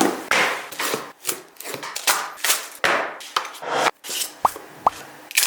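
A smartphone's retail box and packaging being handled and opened: a quick run of short scraping and rustling strokes with small taps, and two brief rising squeaks near the end.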